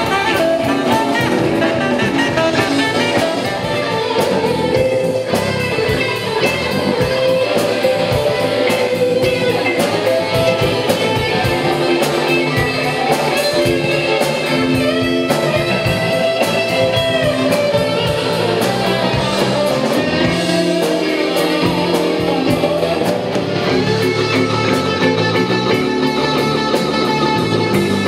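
Live blues-rock band playing, with an electric guitar leading in bent, sliding notes over drums, bass and keyboards.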